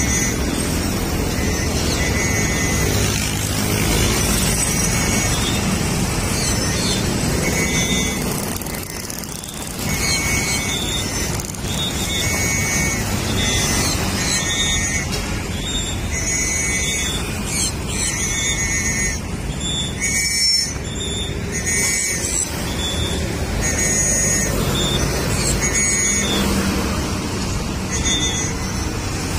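Steady road traffic noise from passing cars and motorcycles, with a short warbling high-pitched chirp repeating every one to two seconds.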